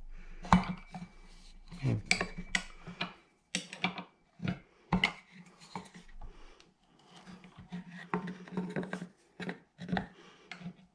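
Wrench clinking and scraping on the magneto rotor's 14 mm nut as it is tightened, with a wooden block wedged against the rotor to stop it turning; irregular metallic clicks and knocks.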